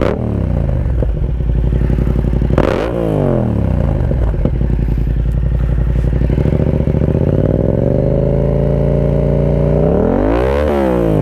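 Yamaha MT-07's 689 cc parallel-twin engine being revved through an Akrapovic 2-in-1 carbon exhaust with the baffle removed. A rev at the start falls back, another comes about two and a half seconds in, then the engine climbs slowly and is held high before quick blips of the throttle near the end.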